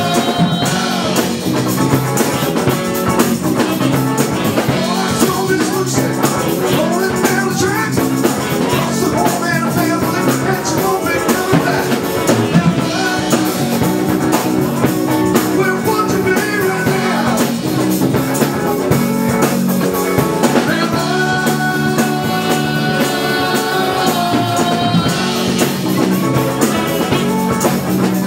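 Live dance band playing a rock and roll number, with drum kit and guitar, loud and steady throughout.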